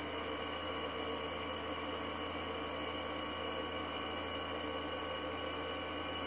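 A steady, even hum with a faint hiss behind it, unchanging throughout.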